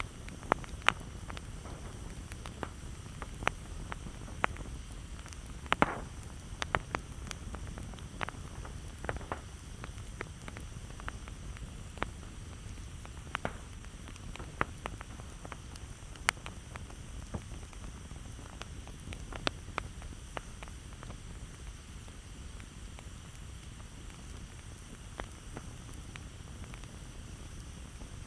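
Campfire crackling: burning wood snapping and popping in sharp, irregular cracks over a low steady rumble. The pops come thickest in the first half, with a loud cluster about six seconds in.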